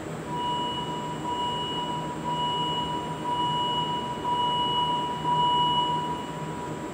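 An electronic tone, steady in pitch with a fainter higher overtone, swelling about once a second for some six seconds before cutting off. Under it runs the steady hum of the standing Azur métro train.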